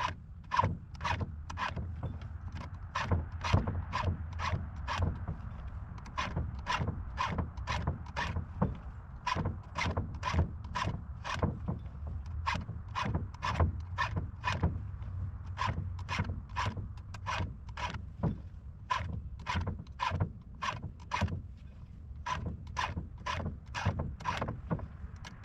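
A chainsaw file rasping by hand across the chain's cutters, an even run of short strokes about two a second, five strokes on each tooth. A steady low hum runs underneath.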